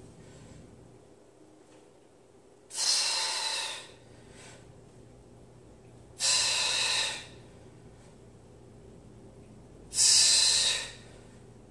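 A man breathing out forcefully three times during barbell rows, each breath a loud rush of air about a second long, a few seconds apart, timed with the pull of each repetition.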